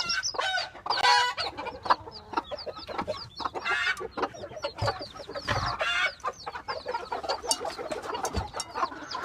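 A flock of chickens clucking and calling, many short calls overlapping one another.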